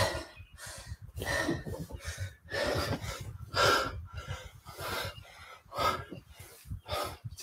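A man breathing hard and fast through a workout, short sharp breaths about twice a second: he is winded from the exertion.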